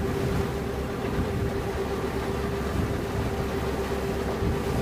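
Excursion boat under way: its engine runs with a steady drone and a constant hum, over low rumbling wind on the microphone.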